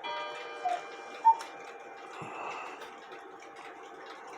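Metal clockwork ringing briefly with a bright tone that fades within about a second. Two short squeaks and a sharp click follow about a second in, over faint steady clock ticking.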